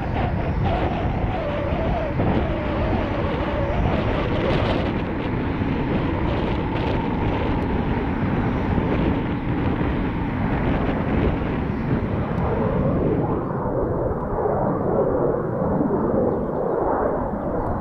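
Eurofighter Typhoon's twin EJ200 turbofans at taxi power: steady jet noise with a wavering whine. About thirteen seconds in it switches to the duller, more muffled roar of an A-4 Skyhawk jet on landing approach.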